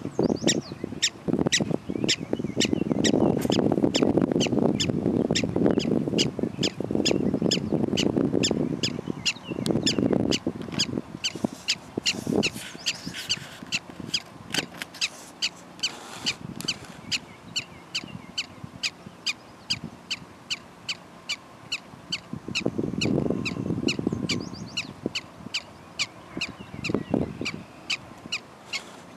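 Black-tailed prairie dog barking: a long, even run of short, sharp chirping barks, about two to three a second. A low rumble swells underneath twice.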